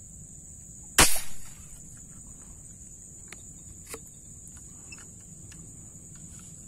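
A rubber-band-powered wooden tiksay spear gun fires once about a second in: a sharp, loud snap as the spear is released into the water. A steady high-pitched insect drone runs underneath, with a faint click a few seconds later.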